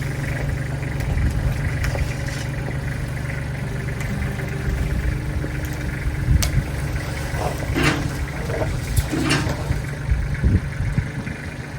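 Engine idling steadily, with several short clanks and scrapes about two-thirds of the way in.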